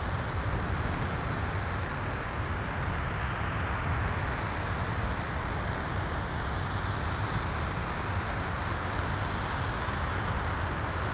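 RS-25 liquid-hydrogen/liquid-oxygen rocket engine firing steadily during a long hot-fire on a test stand: an even, unbroken noise, heaviest in the deep rumble with a hiss above, holding the same level throughout.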